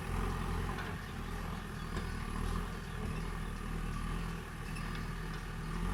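Diesel engine of heavy earthmoving machinery running steadily at low revs, just after easing off from a louder, harder run.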